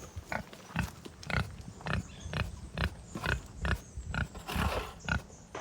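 Pigs grunting in a steady run of short grunts, about two or three a second, with one longer, noisier grunt about four and a half seconds in.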